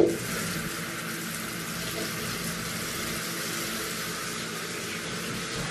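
Hotel shower running: water spraying in a steady hiss that starts suddenly as it is turned on.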